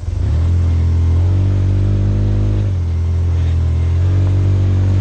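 Side-by-side UTV engine pulling under throttle on a dirt trail. Its note climbs just after the start, drops back for a moment about two and a half seconds in, then climbs again.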